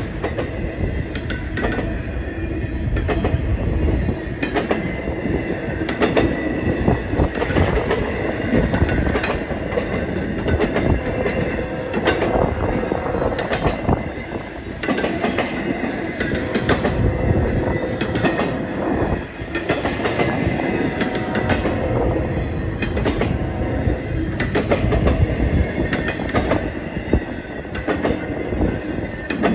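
Empty intermodal spine cars of a freight train rolling past close by. The wheels clank in an uneven, continuous stream over the rails, and a thin, high wheel squeal rides over the rumble.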